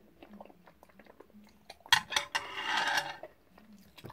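Eating utensils clinking and scraping against a bowl of jjajang ramen. There are light ticks at first, then a louder stretch of scraping with sharp clinks about two seconds in.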